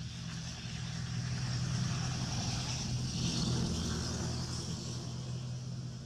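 A motor vehicle's engine passing by: a steady low hum that grows louder over the first couple of seconds and fades toward the end, with a high hiss above it.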